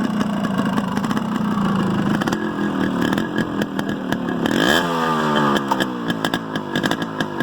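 KTM motorcycle engine running, with a rev that rises in pitch about five seconds in and then holds higher, over a rattly clatter.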